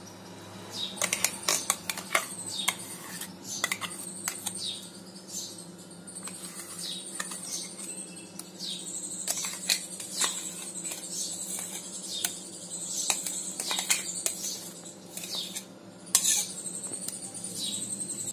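A spoon clinking and scraping against steel as thick ground poha paste is scraped out of a mixer jar into a steel bowl of rice batter, in irregular strokes with no steady rhythm.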